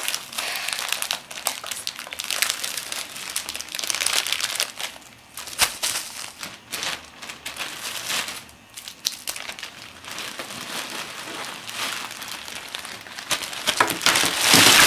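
Plastic bag and candy wrappers crinkling as hands rummage through them, a continuous rustling crackle of small clicks that grows louder near the end.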